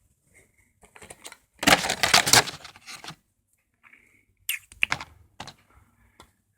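Sharp clicks and a short dense clatter of clicks about two seconds in, with a few more single clicks near the end: small hard plastic objects being handled or tapped.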